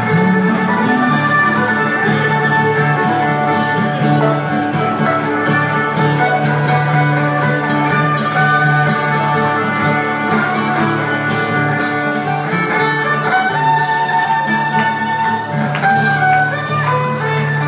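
Live instrumental passage of fiddle played over acoustic and electric guitars.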